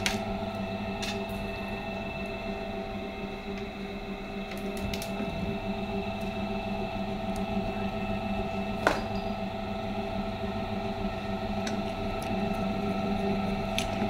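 Motor of an 8 mm vial cap crimping machine running with a steady hum of several tones, with a few sharp clicks, the loudest about nine seconds in.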